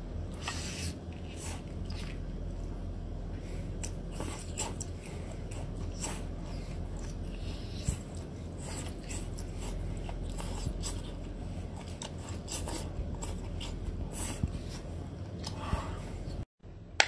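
Close-up wet biting, chewing and slurping of a whole marinated octopus: tentacles sucked in and bitten, with many short sticky smacks and clicks from the mouth. A steady low hum lies underneath, and the sound drops out suddenly near the end.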